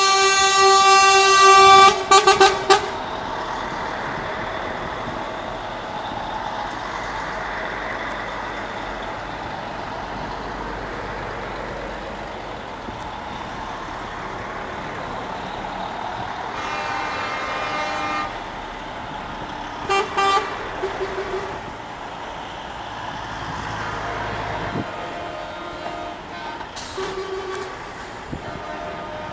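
Truck horns blasting as a convoy of trucks drives past: a long, loud blast at the start, then quick short toots. Further horn blasts come about two thirds of the way through and again near the end. Heavy diesel engines run steadily in between.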